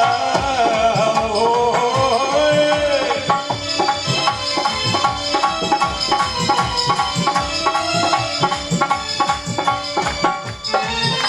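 Live rasiya folk music. A drawn-out sung vowel slides up and down over the first few seconds, then a hand drum beats a steady rhythm under held instrumental tones.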